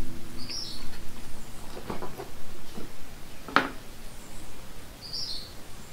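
Light clicks and knocks of lithium-ion cells and a plastic battery cell holder being handled, the sharpest click about three and a half seconds in. A bird chirps briefly twice in the background, once near the start and once near the end.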